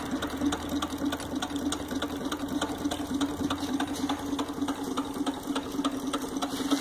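Model Denny hot air engine running fast, its pistons and linkage making a quick, even clatter of clicks over a steady low tone. It is running on a very low burner setting.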